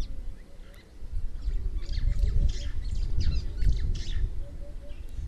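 Wild birds calling: many quick chirps and harsh squawks, busiest from about a second and a half in, with a short run of evenly spaced low notes, over a low fluctuating rumble.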